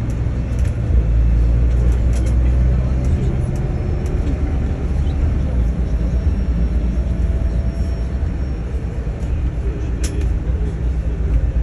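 Airport apron bus running, heard from inside its cabin: a steady low engine drone with a few faint clicks and rattles.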